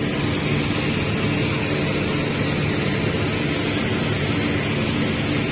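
Compressed natural gas hissing out steadily through a drain hose into a steel drum as a CNG tube trailer is drained; the gas comes out cold enough to frost the drum.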